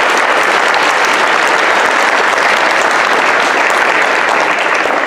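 Large audience of children and adults applauding, dense steady clapping.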